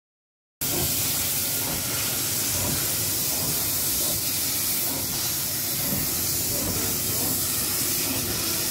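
Steady steam hiss from a Belgian Cockerill vertical-boilered 0-4-0 steam locomotive standing in steam. It starts suddenly about half a second in.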